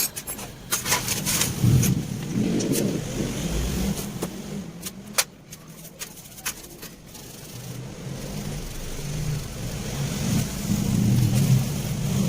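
A motor vehicle engine running in the background, swelling about ten seconds in, with scattered sharp metallic clicks.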